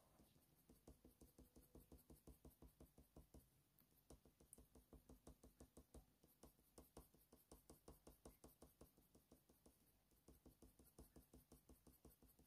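Near silence, with the very faint scratching of a Faber-Castell Polychromos coloured pencil shading on hot-press watercolour paper in rapid short strokes, several a second.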